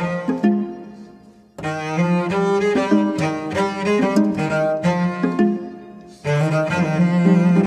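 Background music with bowed strings, played in phrases that fade away and restart suddenly, about a second and a half in and again near the end.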